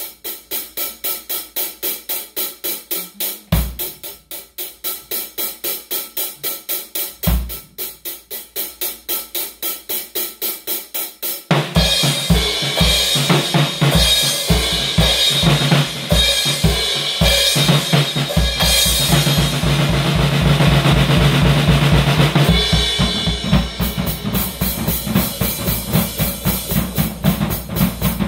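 Drum kit with Paiste cymbals played solo. It opens with a steady cymbal pattern and the odd bass drum hit. About halfway a crash opens a louder, busier passage of bass drum and snare hits under ringing cymbals, which settles back into the steady pattern near the end.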